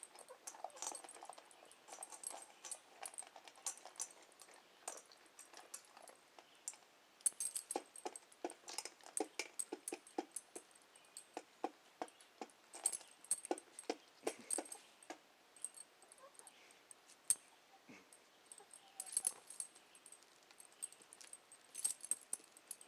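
A Doberman eating dry kibble from a stainless steel bowl: faint, irregular crunches and clinks, coming in quick runs of chewing.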